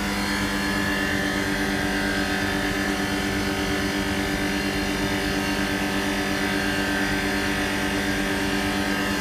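Refrigeration condensing unit running steadily after a compressor replacement: the newly fitted L'Unité Hermétique hermetic compressor humming, with the condenser fan turning.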